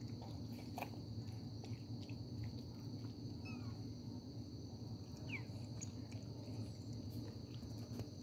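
Crickets chirring, a steady high-pitched drone, over a low steady hum, with a few faint clicks and two or three brief squeaks.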